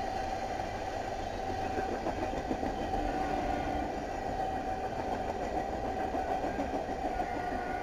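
Freight train flatcars rolling past at steady speed: an even rumble of wheels on rail, with a steady high tone over it.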